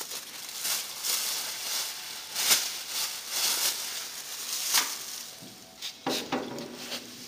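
Rear axle shaft of a van being worked by hand in the axle housing: rough metal scraping and rubbing in uneven strokes, loudest twice near the middle. About six seconds in comes a sharper metal knock, followed by a low ring.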